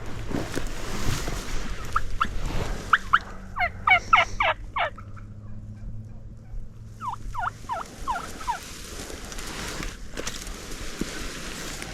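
Wild turkey gobbler gobbling twice: a loud rapid rattle of falling notes about three seconds in, then a shorter gobble about seven seconds in.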